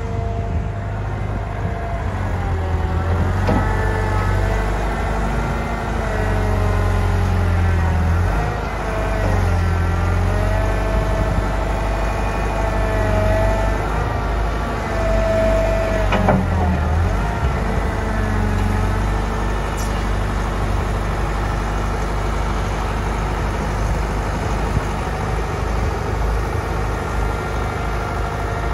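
Atlas 1404 HD tracked excavator's diesel engine running steadily under a hydraulic whine that rises and falls as the boom, arm and bucket are worked. A single knock comes about sixteen seconds in.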